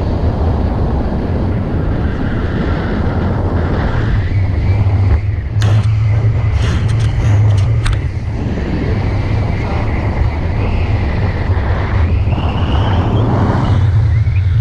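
Wind buffeting the microphone of a pole-mounted camera during a tandem paraglider flight: a steady low rumble with an airy rush. A few sharp clicks come around the middle.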